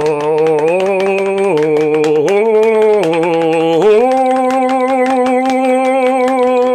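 A man singing one long, loud held vowel into the microphone as an audio test. The pitch steps up and down a few times, then rises about four seconds in to a higher wavering note that he holds.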